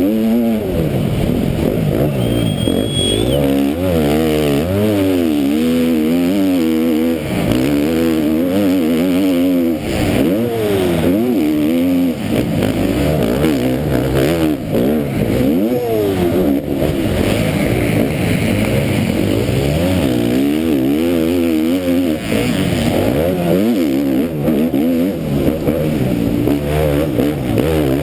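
A KTM MX2 motocross bike's engine, heard close up from the rider's helmet, racing flat out, its pitch climbing and falling again and again with the throttle.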